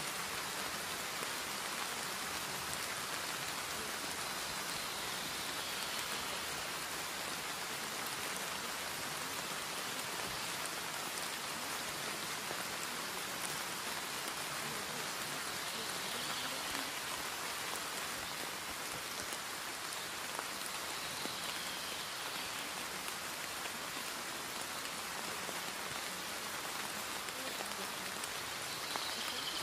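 Steady rain, an even hiss with no breaks, used as the masking track of a subliminal.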